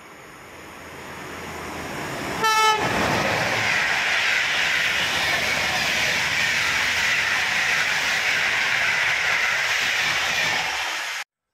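PKP Intercity passenger train hauled by an EU160 Griffin electric locomotive, approaching and passing at speed. Its rumble swells, a short horn blast sounds about two and a half seconds in, then comes the steady rush and wheel clatter of the coaches going by. The sound cuts off suddenly near the end.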